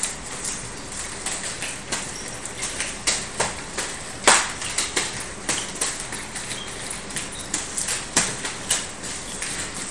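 Nunchaku being spun and caught: an irregular run of sharp clacks and smacks, about two or three a second, with louder hits about four seconds in and again about eight seconds in.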